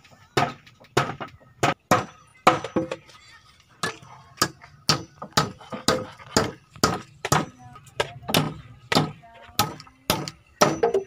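Hammer driving nails into weathered wooden planks, a steady run of sharp blows at about two a second with a short break partway through.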